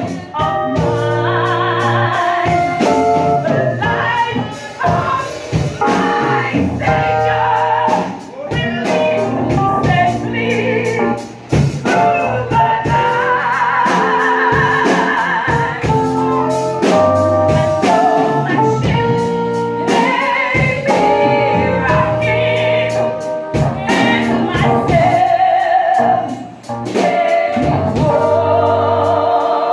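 A woman singing a gospel song into a microphone, her voice wavering with vibrato on held notes, over live keyboard and drum accompaniment.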